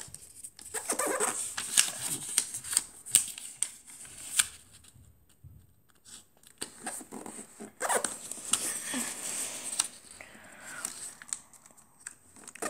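A square of origami paper being folded and creased by hand: irregular rustling and crinkling with sharp creasing strokes, and a short lull about five seconds in.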